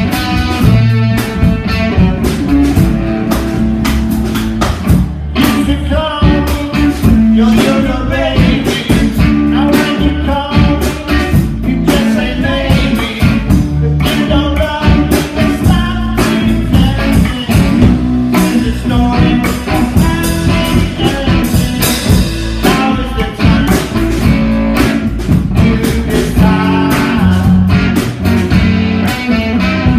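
Live band playing a rock and roll number on upright double bass and electric guitar.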